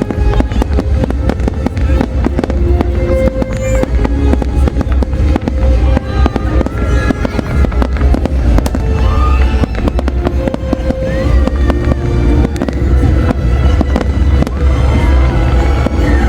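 Large aerial fireworks display: continuous, rapid, overlapping bangs and crackles of shells bursting, with no pause, heavy in the low booms.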